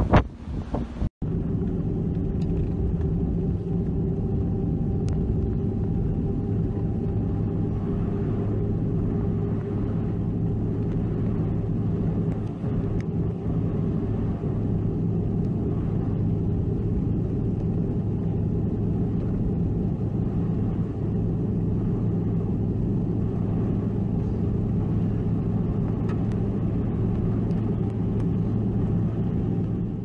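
Wind gusting on the microphone for about a second, then, after a cut, the steady low hum of a car's engine and tyres on a snow-covered road, heard from inside the cabin.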